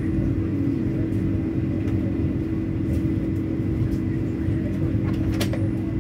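Vande Bharat electric train running, heard from inside the coach: a steady low rumble with a constant hum, and a single sharp click near the end.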